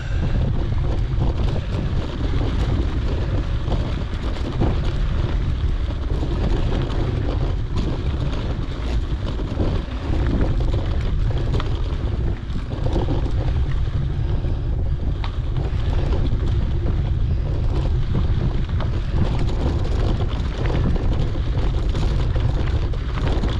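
Steady wind buffeting a GoPro's microphone during a mountain bike ride on a dirt trail, with a rough rumble of tyres over dirt and gravel and small scattered rattles and ticks.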